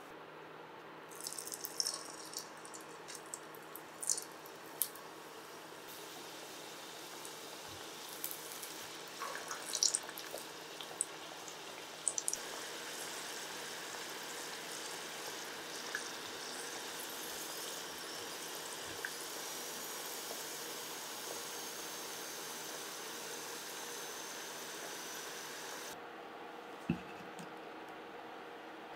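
Cut potato pieces deep-frying in hot oil in a small pot: a steady sizzle with scattered crackles and pops, starting about a second in and stopping abruptly near the end. A single sharp click follows just before the end.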